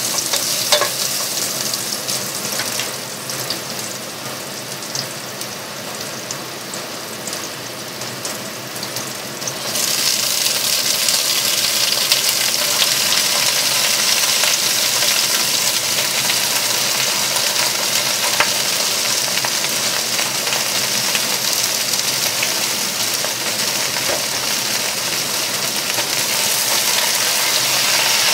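Mushrooms and garlic sizzling in hot oil in a pan, stirred with a wooden spatula, with a few light scrapes and taps. About ten seconds in the sizzle gets louder and hissier as Chinese cabbage goes into the pan, and it keeps sizzling as the cabbage is stirred.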